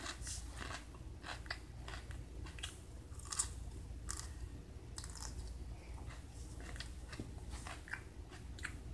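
A man chewing a bite of raw yellow pepper: crunchy, irregular crisp chews about twice a second.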